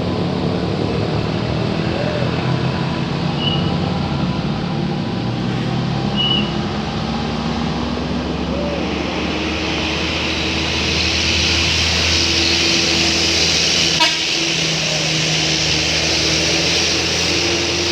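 Road traffic of buses and other heavy vehicles: a large engine running low and steady, with tyre and engine noise of passing traffic swelling about halfway through, and a single sharp click late on.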